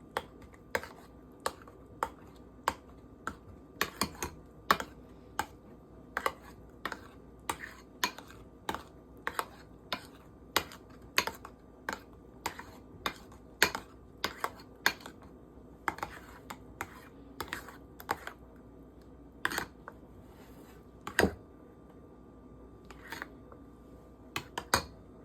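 A steady series of light, sharp clicks or taps, a bit over one a second, with a few louder knocks near the end.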